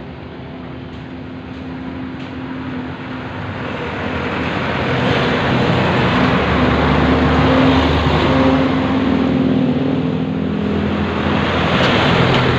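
Engine of a road vehicle passing close by, steadily getting louder over the first five seconds or so, then staying loud.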